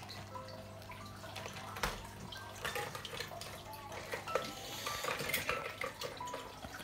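Aquarium water trickling and bubbling over a steady low hum, with scattered light clicks and clinks.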